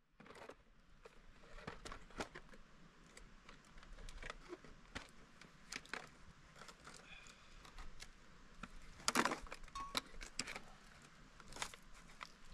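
Close handling noise: rustling and crinkling of fabric or plastic with scattered light clicks and clinks. The loudest cluster of clicks comes about nine seconds in.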